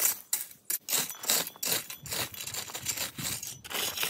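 Rake dragged through loose gravel, with repeated uneven scraping strokes and the stones crunching and rattling.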